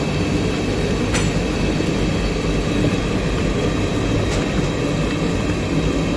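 A high-pressure gas burner running on high flame under a large aluminium cooking pot: a steady rushing noise, with a faint click about a second in and another near four seconds.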